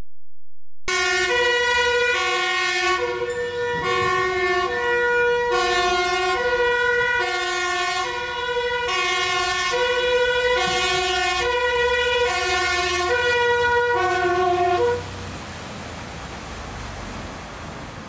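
Dutch fire engine's two-tone siren alternating evenly between a high and a low note, which cuts off suddenly about 15 seconds in. A steady hiss follows.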